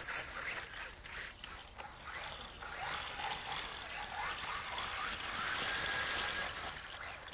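Radio-controlled car driving over ice and snow: a steady mechanical whirr from its motor and gears, with short rising whines as the throttle is blipped and a louder stretch near the end.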